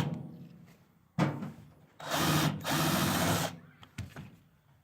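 Power drill running in two bursts, a short one about a second in and a longer one of about a second and a half, as it backs out Torx screws from a microwave's metal casing. A click follows near the end.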